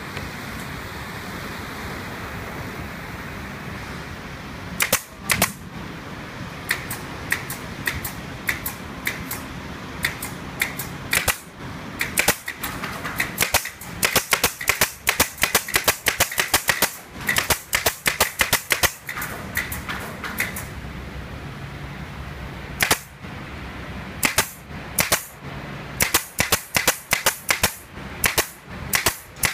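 Air-powered fastener gun firing sharp shots in irregular runs, some in quick strings of several a second, over a steady workshop machinery hum that is heard alone for the first few seconds.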